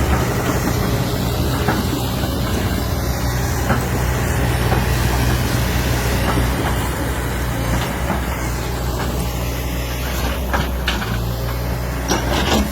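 JCB backhoe loader's diesel engine running steadily under load, with a few sharp knocks near the end.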